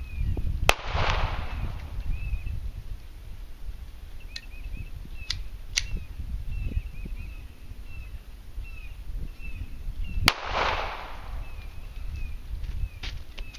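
Two shots from a Browning Challenger II .22 pistol, about nine and a half seconds apart, each a sharp crack that rings on briefly after. Small birds chirp between the shots over a low rumble.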